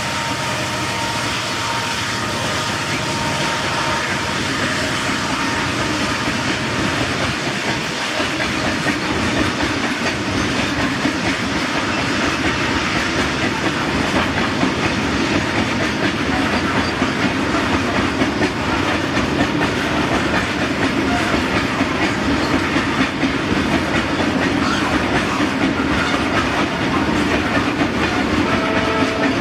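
BCCW covered hopper cement wagons of a freight train rolling past, their steel wheels clattering over the rail in a steady clickety-clack that grows slightly louder.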